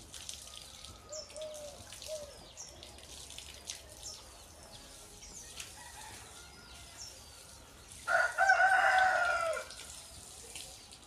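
A rooster crows once, loudly, for about a second and a half near the end, over small birds chirping repeatedly.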